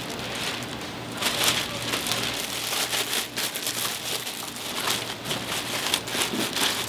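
Thin plastic bag crinkling and rustling in irregular crackles as gloved hands spread it over and press it down around a steamer tray of sundae.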